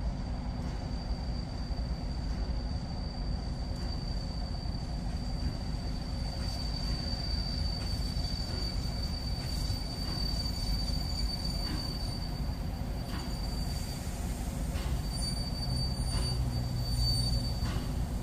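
Steam-hauled passenger train rolling slowly on curved track: a steady, high-pitched wheel squeal over a low rumble, breaking off briefly about three quarters of the way through and then returning, with a few faint clicks near the end.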